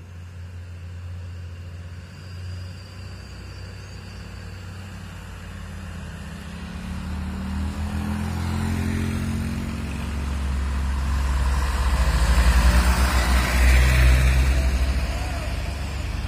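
Vehicle engine running steadily, then revving up with a rising pitch about eight seconds in and getting louder toward the end.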